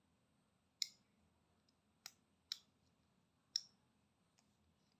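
Four short, sharp clicks, spread over a few seconds, from small parts being handled: an opened earbud charging case and a metal snap hair clip. The background is otherwise near silent.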